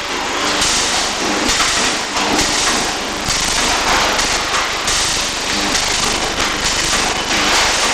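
Electric arc welding: a steady, loud crackle and sizzle from the arc, surging unevenly every half second to second.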